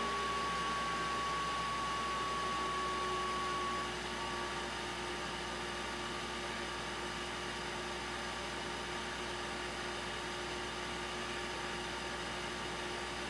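A small motor running steadily with a hum and hiss; a thin high tone in it stops about four seconds in and the sound gets slightly quieter.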